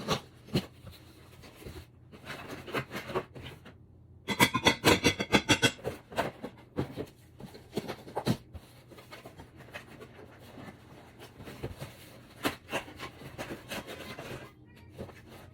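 Packaging being handled: rustling, rubbing and scraping with scattered light knocks, and a loud run of rapid crinkling about four seconds in that lasts under two seconds.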